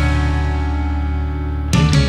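Rock music with electric guitar: a held chord rings out, then the drums and full band come back in near the end.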